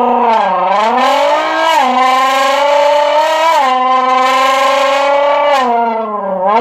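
Imitation of a Nissan GT-R engine accelerating, made by rasping the throat into a 355 ml Coca-Cola can bent in half and held to the mouth. It is a buzzing drone that climbs in pitch and drops back twice, like revs falling at gear changes, then holds, dips and swells again near the end.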